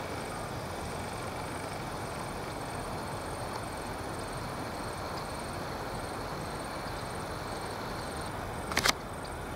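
Four T, B and G class diesel locomotives running light in the distance, a steady low noise as they approach. A sharp double click comes near the end.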